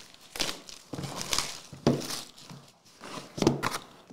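Holographic foil wrap being torn off a trading card box and crumpled, heard as a few separate sharp crackling rustles.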